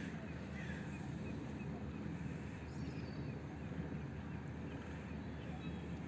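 Harbour ambience: a steady low rumble with a few faint, short bird calls over it.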